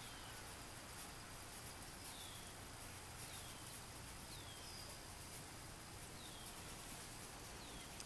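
Faint outdoor ambience: a bird repeats short, downward-sliding high chirps about once a second over a steady low hiss.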